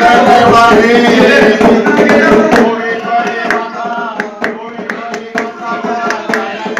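A group of voices singing a Marathi devotional palna (cradle song) to Shri Bhairavnath, with sharp claps keeping time that stand out more from about halfway through.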